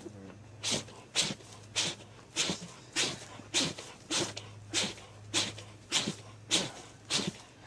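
Young bear sneezing over and over, a short sharp sneeze a little less than twice a second, about a dozen in all, over a faint steady low hum.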